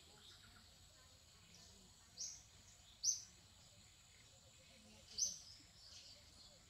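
Short, sharp high bird chirps, three of them: about two seconds in, a second later, and again about five seconds in. A steady thin high whine runs underneath.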